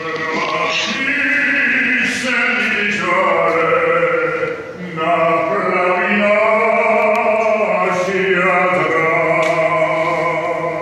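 Klapa, a small group of men singing unaccompanied in close harmony, holding long sustained chords, with a short break for breath about five seconds in.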